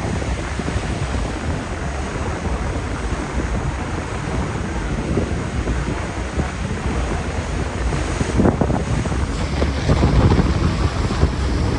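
Breeze buffeting the microphone as a steady low rumble of wind noise, gusting louder twice near the end.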